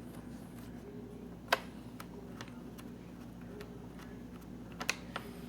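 A few sharp small clicks and taps from a screwdriver and laptop plastic parts being handled during screen reassembly: the loudest about a second and a half in, a quick cluster near the end, over a steady low hum.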